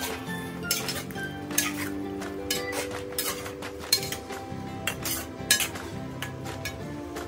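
Metal slotted spoon clinking and scraping against a stainless steel pan while stirring chicken stew: irregular knocks about twice a second, the sharpest around four and five and a half seconds in.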